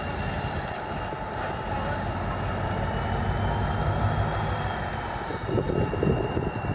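Irish Rail Class 071 diesel-electric locomotive moving slowly over pointwork. A steady low engine rumble runs under a thin, high wheel squeal whose pitch rises and falls back in the middle, and the engine gets rougher and louder near the end.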